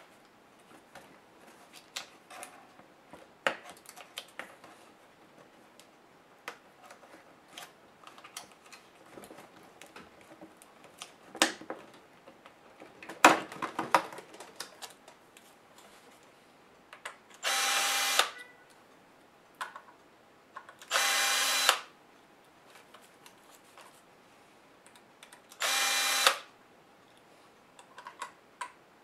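Scattered clicks and knocks of small laptop parts being handled, then a cordless electric screwdriver whirring in three short bursts of about a second each as it backs screws out of the laptop's bottom case.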